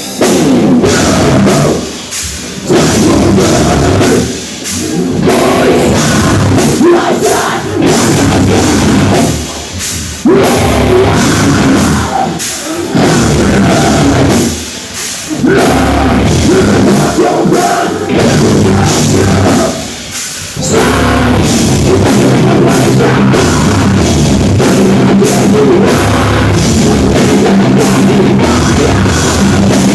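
A live metal/hardcore band plays a song on distorted guitars and a drum kit. The riff stops briefly several times in the first twenty seconds, then runs on without a break.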